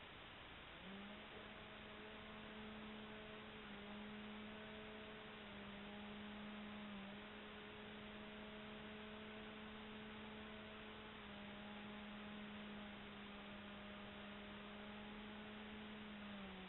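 Faint steady whine of a Bixler RC plane's electric motor in flight over background hiss. It starts about a second in, shifts slightly in pitch a few times with the throttle, and drops lower near the end.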